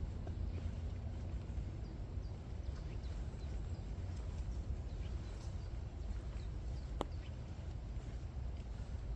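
Rain ambience on a walk: scattered drops ticking and tapping over a low steady rumble, with one sharp tap about seven seconds in.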